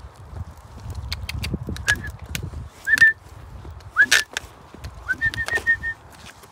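Footsteps of a walker and a French bulldog on a wet tarmac path, a string of short sharp ticks. Short whistle-like notes sound a few times over them, with a quick run of about six near the end.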